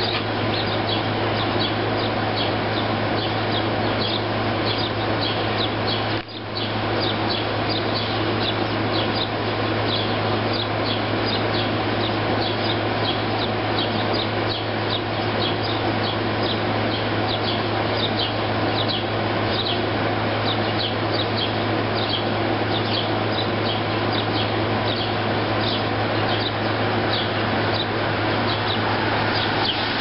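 A flock of sparrows chirping continuously, several short chirps a second, over the steady hum and whoosh of an air conditioner.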